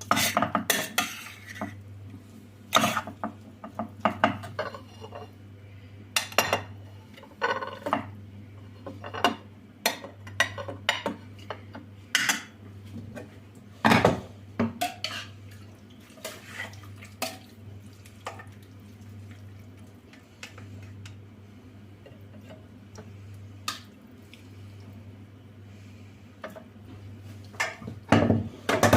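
Dishes, pots and cutlery clinking and knocking in irregular handling at a kitchen counter, over a steady low hum. The clatter is loudest about halfway through and near the end.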